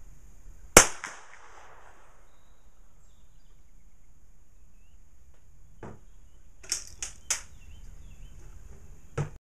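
A single shot from a .22 free pistol about a second in, sharp with a short echo. From about six seconds in come several metallic clicks, three of them in quick succession, as the single-shot pistol is handled and its action worked for reloading.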